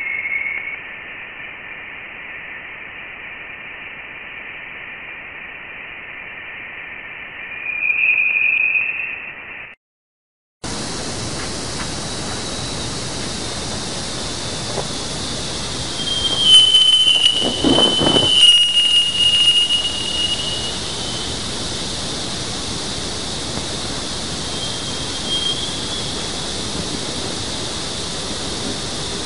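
Sonified spacecraft recordings: a narrow, thin hiss for about ten seconds, then a brief cut to silence, then a much wider static hiss. High squealing tones glide slightly downward in it and swell louder a few seconds later.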